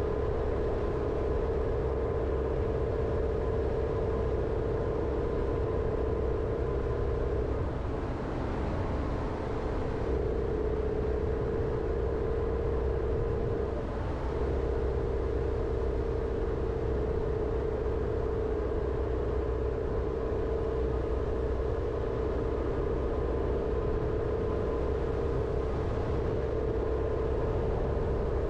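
Jeep Renegade driving along: steady engine and tyre rumble with a droning hum that eases briefly twice, about a third of the way and halfway through.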